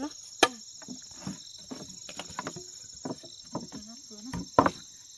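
Steady high-pitched insect chorus, with scattered sharp clicks and snaps about once a second.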